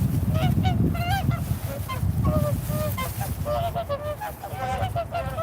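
A flock of swans calling: many short, overlapping honking calls, growing denser in the second half. A steady low rumble runs underneath.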